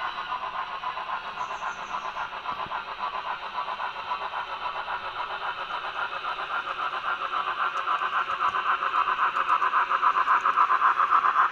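N scale model steam locomotive and freight train running along the layout track, a steady running noise with a fast, even pulse that grows louder as the train nears.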